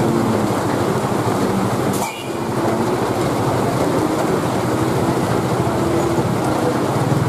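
A car engine running hard under heavy rain: a front-wheel-drive Nissan Grand Livina failing to climb a wet, slippery slope, its front wheels losing grip. The steady noise briefly drops about two seconds in.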